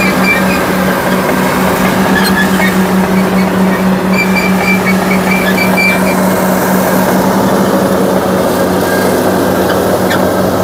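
Caterpillar D6T crawler bulldozer's diesel engine running steadily, a constant loud hum under a broad mechanical rumble.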